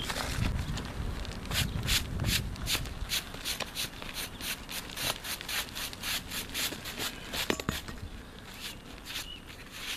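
Hand brush sweeping grit and debris off exposed roofing tar paper and the shingle edges around it, in quick repeated strokes of about three a second that ease off near the end.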